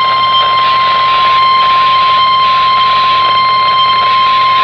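NOAA Weather Radio warning alarm tone: one steady, loud, high tone of about 1050 Hz over radio static. It is the alert signal that a warning broadcast, here a flash flood warning, is about to follow.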